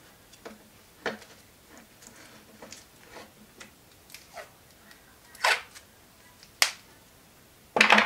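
Red PVC insulating tape being pulled off the roll and wrapped round the end of a float switch's unused blue wire to insulate it, with light clicks and rustles of wires being handled. A few louder short noisy bursts and one sharp click come in the second half.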